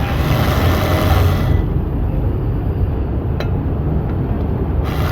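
A steady low mechanical rumble. A high hiss over it stops about a second and a half in, and there is a single sharp click near the middle.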